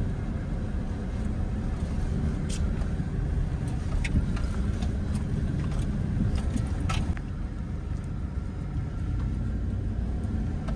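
A 4x4 pickup truck driving slowly over a rocky dirt trail, heard from inside the cab: a steady low engine and tyre rumble with a few sharp knocks and rattles from the bumpy ground.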